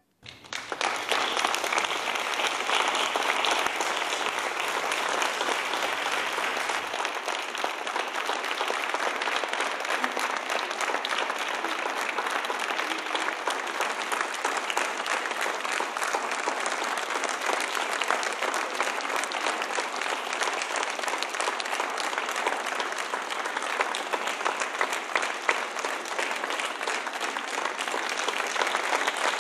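Large theatre audience applauding at the end of a performance; the clapping starts suddenly and keeps up steadily.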